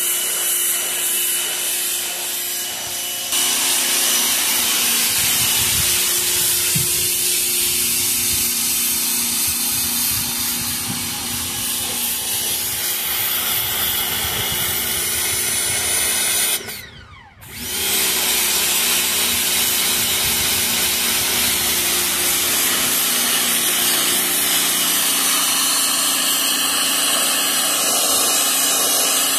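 Pressure washer running: a steady motor hum under the loud hiss of the water jet. The sound drops out briefly about two-thirds of the way through.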